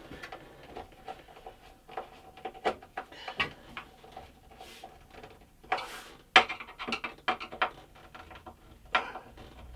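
Screwdriver working crosshead bolts up into a hardwood workbench top from underneath: irregular clicks, knocks and scraping of the bit in the bolt heads and of wood, a little louder about six seconds in. The bit tends to slip out of the crosshead under pressure, risking stripped heads.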